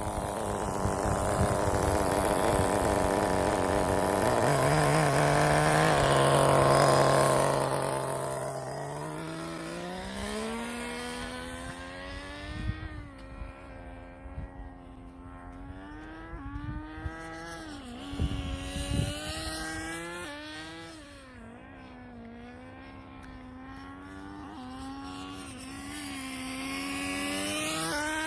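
Tamiya FS18LT two-stroke glow (nitro) engine of an RC car, breathing through a TM2 muffler. It runs loud and steady for the first seven seconds or so. Then its pitch climbs and it grows fainter, rising and falling with the throttle, and it gets louder again near the end.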